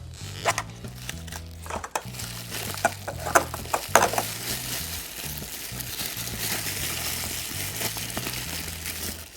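Hands opening a plastic surprise egg and its toy wrapper: several sharp plastic clicks in the first four seconds, then a stretch of plastic crinkling. Background music with a low bass line plays underneath.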